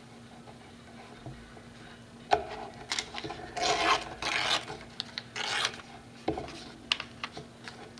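Paper being torn along the edge of a plastic tear ruler, in several short rasping strokes, after a single knock about two seconds in.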